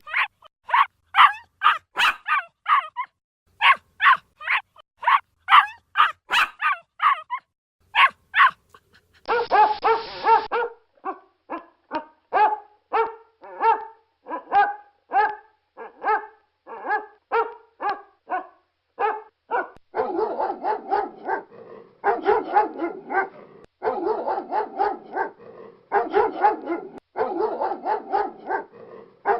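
Dogs barking loudly in quick series: first a small dog's high-pitched yapping, then, after a short burst of hiss about nine seconds in, a deeper bark repeated steadily, and from about twenty seconds in dense, overlapping barking.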